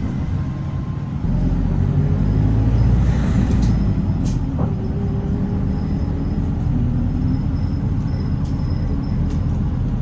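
City bus engine running, heard inside the cabin, getting louder about a second in as the bus pulls on, with a few scattered sharp clicks and rattles.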